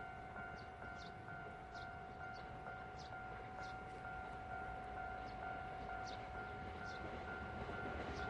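Railway level-crossing warning signal ringing in a steady repeating pattern, about two to three beats a second, with short high chirps over it. The background noise slowly grows louder toward the end as a train approaches.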